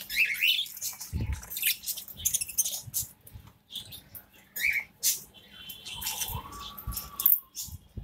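Pet birds, a Bengalese finch and budgies, giving short high chirps among frequent scratchy rustling clicks. There is a dull thump about a second in and a longer, drawn-out call near the end.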